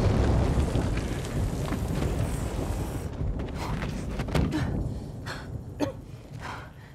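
The low rumble of an explosion dying away over the first three seconds, after which a few light, separate knocks and clicks sound over a quiet background.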